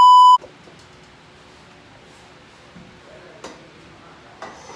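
A loud, high, steady test-tone beep of the colour-bar kind, cut off after about a third of a second. Then quiet room sound with a couple of faint ticks or knocks.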